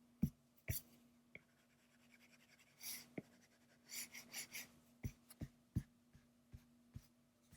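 Colored pencil scratching on paper in short, quick strokes, faint, as colours are layered and mixed, with many sharp ticks of the pencil against the page in between.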